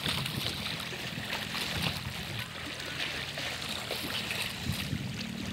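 Lake water lapping and splashing in small waves, a steady wash of water noise with a faint steady low hum underneath.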